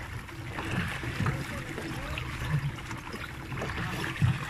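Lake water lapping and churning around a pedal-powered water bike as it is pedalled along, with a steady low rumble underneath and a brief knock near the end.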